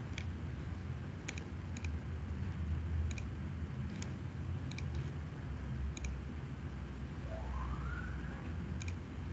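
Computer mouse clicks, about eight at irregular intervals, over a steady low hum. A faint rising whine comes in near the end.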